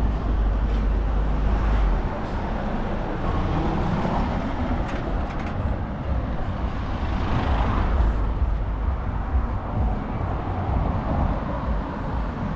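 Outdoor street ambience dominated by a steady low rumble of vehicle noise, which swells briefly about seven to eight seconds in.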